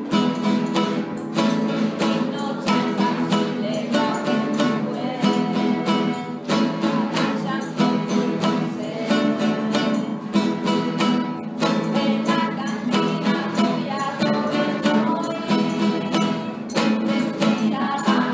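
Acoustic guitar music, strings strummed and plucked with a steady beat.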